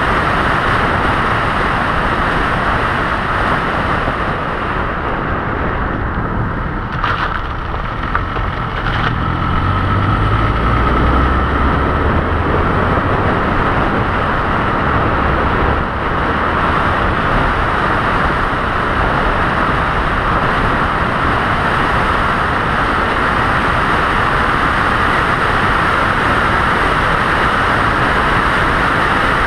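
Steady road and wind noise of a vehicle driving at highway speed. A deeper rumble joins in from about ten seconds in and fades out around seventeen seconds, with two short clicks just before it.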